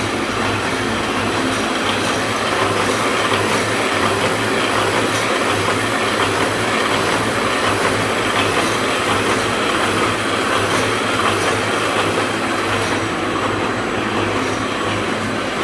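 Double-needle scourer machine running steadily: a continuous fast mechanical clatter over a steady low hum.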